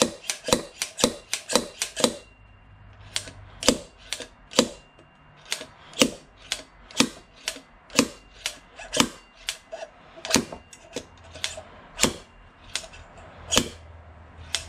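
A slide hammer on an expanding bearing puller striking repeatedly, sharp metal-on-metal knocks as the old bearing is pulled from the front wheel hub of a 2003 Honda VFR800. The knocks come fast for about the first two seconds, then settle to about two a second.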